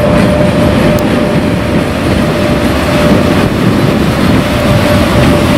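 Electric locomotive running past at close range: a steady rumble of wheels on rail, with a constant thin whine held over it.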